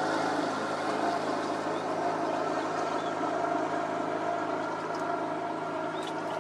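A boat's engine running steadily on the river, a continuous hum with several steady tones.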